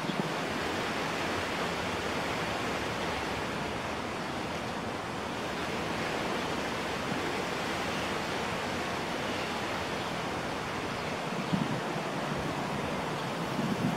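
Steady rushing wind noise outdoors, with a few low gusts buffeting the microphone near the end.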